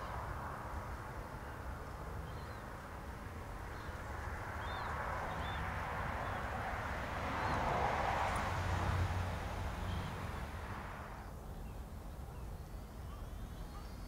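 Steady rushing outdoor background noise that swells about halfway through and drops off near the end, with a few faint, short bird calls in the first half.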